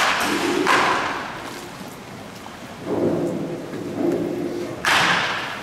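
Baseball bat striking machine-pitched balls in an indoor batting cage. Each hit comes suddenly and rings out in a long echo: one right at the start, another under a second later, and a third near the end. A duller, lower rumble falls in between, about three seconds in.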